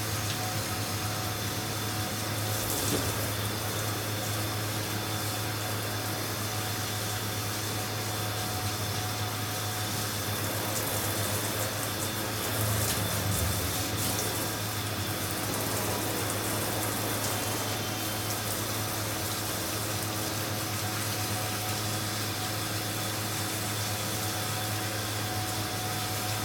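Water spraying steadily from a hand-held hose sprayer onto a small wet dog and the stainless steel tub floor, with a low steady hum underneath.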